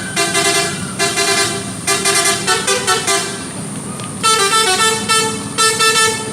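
Indonesian bus "telolet" musical horn playing a tune of changing multi-tone notes. A quick run of short notes comes first, then after a brief lull about three seconds in, a few longer held notes.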